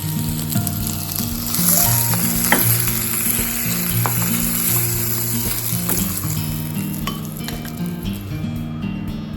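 Chicken pieces sizzling as they pan-fry in oil, with a few light taps of a cooking utensil against the pan.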